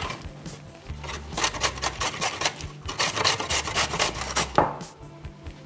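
Carrot being grated on a stainless steel box grater: quick repeated rasping strokes that stop about a second before the end.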